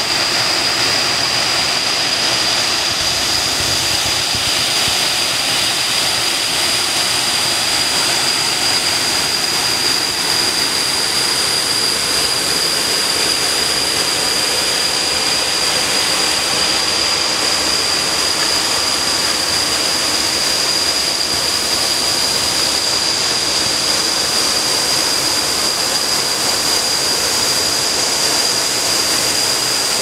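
Waterfall's steady rush of falling water, with a thin, steady high-pitched whine over it.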